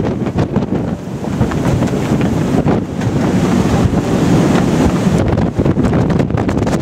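Strong wind buffeting the microphone in a loud, gusty rumble, with the rush of the sea under a square-rigged sailing ship running before the wind.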